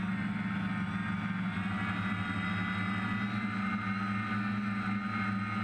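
Six brushless motors and propellers of a DJI F550 hexacopter running steadily in flight, heard from on board: a constant hum with a high whine that edges up slightly in pitch.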